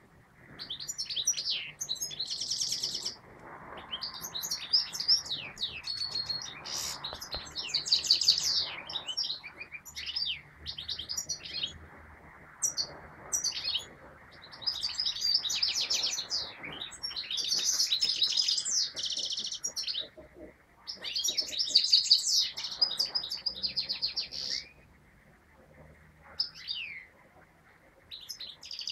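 European goldfinch singing: fast twittering, trilling song in phrases of one to four seconds with short pauses between them.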